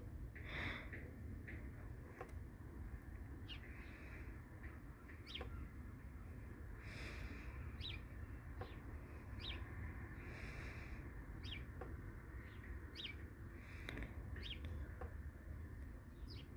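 Faint outdoor ambience: birds chirping in short calls about once a second, over a low steady rumble.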